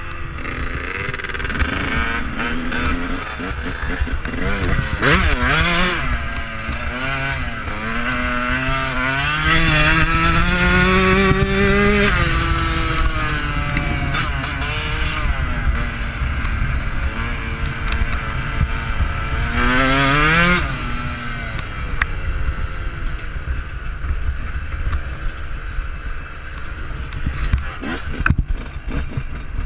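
Yamaha YZ125 two-stroke motocross engine being ridden hard, its pitch climbing under throttle and dropping back off again and again, with the longest climbs peaking about twelve and twenty seconds in. A steady low rumbling noise runs beneath it.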